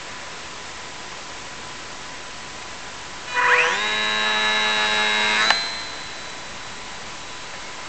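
Electric motor of a Champ Cub radio-controlled model plane winding up to a steady high whine, which cuts off abruptly with a click as the throttle is cut. Steady wind hiss lies underneath.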